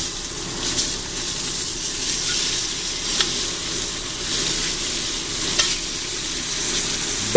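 Veal chops sizzling as they sear in a hot cast iron grill pan on high heat while being flipped with a fork; a steady sizzle with a few light clicks.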